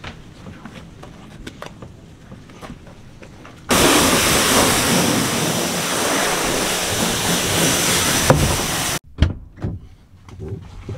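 Pressure washer spraying water: a loud, steady hiss that starts abruptly about four seconds in and cuts off sharply about five seconds later, after faint clicks and knocks.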